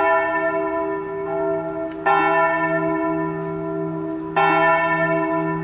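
Church bell struck three times about two seconds apart, each stroke ringing on and slowly fading under the next.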